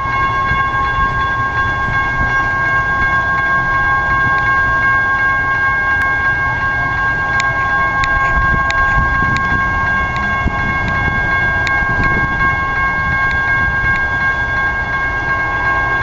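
Railroad grade-crossing warning bells ringing without a break, giving a steady high clang over a low rumble. A few sharp clicks sound in the middle.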